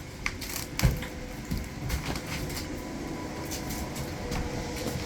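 A few scattered light knocks and thumps, the strongest about a second in, over a faint steady hum.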